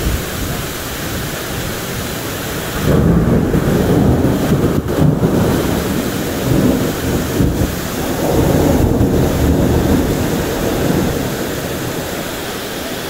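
Thunderstorm: steady rain hiss, and about three seconds in a long roll of thunder rumbles in, swelling and fading in waves and dying away near the end.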